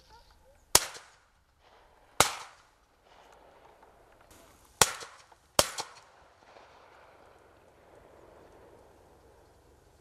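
Four shotgun shots: two about a second and a half apart, then a pair less than a second apart, each dying away in a short echo.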